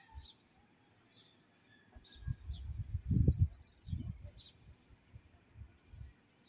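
Faint short chirps of small birds scattered throughout, with low rumbling noise on the microphone in bursts from about two to four and a half seconds in.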